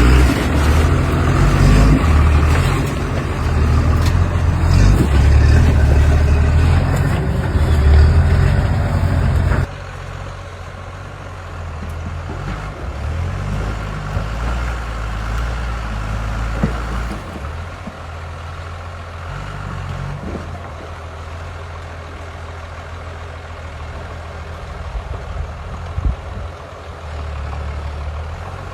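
Off-road 4x4 engines working hard. For the first ten seconds a loud engine runs under heavy revs. After a sudden cut a quieter engine rises and falls in revs, with a few sharp knocks.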